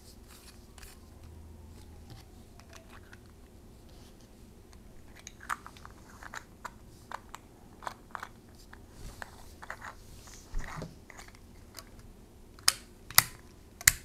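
Plastic parts of an emergency stop pushbutton clicking and rubbing as the red mushroom cap is fitted back onto the switch body. The irregular small clicks start about five seconds in and grow louder near the end.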